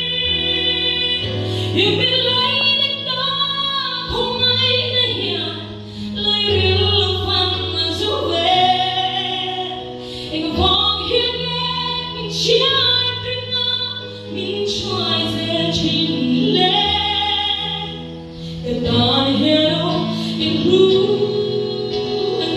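A woman singing a gospel song solo into a handheld microphone over held accompaniment chords and bass notes, amplified through a hall PA system.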